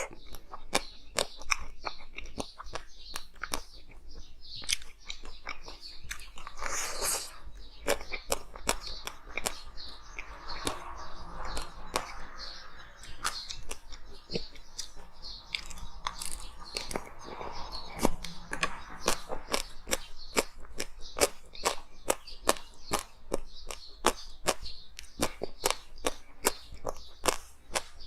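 A person biting and chewing hard frozen ice close to the microphone: a dense, uneven run of sharp crunches and cracks.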